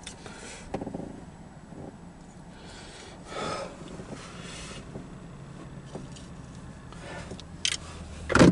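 Low steady hum inside a parked car's cabin, with a few short breathy rustles and a sharper, louder knock of handling just before the end.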